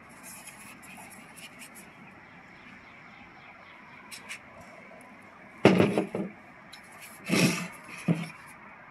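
Polk Audio plastic satellite speaker cabinets being handled and turned over by hand: light clicks and rustling, then a sharp knock past halfway, a short scraping bump about a second and a half later, and a smaller knock near the end.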